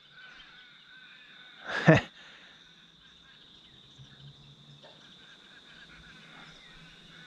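Steady high-pitched insect drone with faint bird chirping, broken about two seconds in by one short, loud call.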